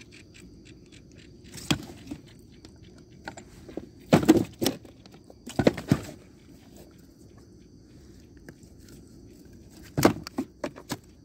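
Handling knocks on a kayak deck: a fish measuring board and the catch being moved about, giving a few short sharp thumps and clatters, the loudest in a cluster around the middle and another near the end, over a low steady rumble.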